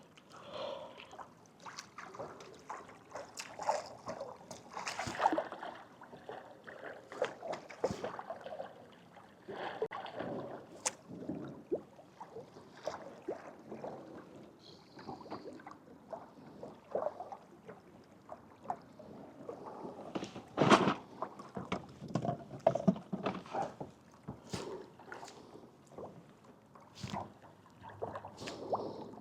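Water sloshing and gurgling against a kayak hull as it moves, with scattered knocks and taps on the hull, the loudest about two-thirds of the way through.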